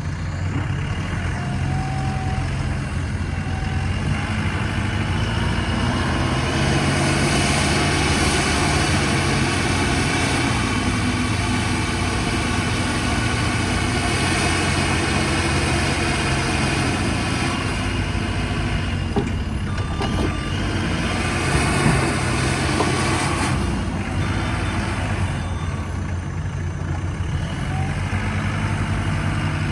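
Diesel engine of a JCB 3CX backhoe loader running steadily, swelling and easing a little in level.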